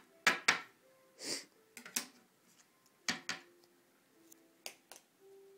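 Plastic props being picked up and set down on a wooden tabletop: sharp knocks and clicks, mostly in quick pairs, with a short breathy sound about a second in.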